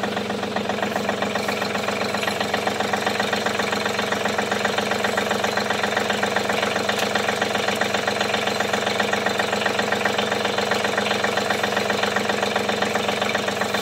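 John Deere 3320 compact tractor's three-cylinder diesel engine running steadily, with an even, fast pulsing.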